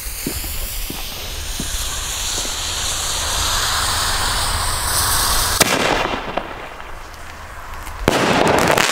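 Fuse of a Weco Fantastic 4 single-shot mortar tube (16 g net explosive mass) hissing and sizzling for about five and a half seconds, then a sharp launch crack, and about two and a half seconds later the shell bursting overhead with a pretty loud bang, the loudest sound here.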